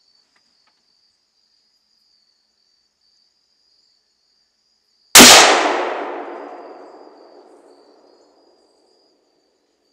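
A single shot from a Browning A-Bolt II rifle in .30-06 fitted with a BOSS muzzle brake, about five seconds in, its report dying away over about three seconds.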